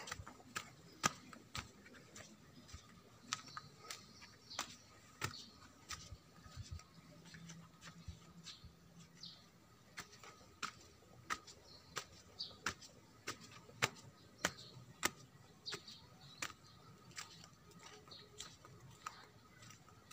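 Footsteps on stone paving and stone steps, sharp clicking steps at a walking pace, with faint bird chirps in the background.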